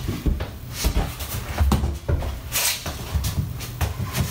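Handling noise of a heavy Douglas fir slab desktop being shifted and stood on end: a series of wooden knocks and low thumps, with a brief scrape about two and a half seconds in.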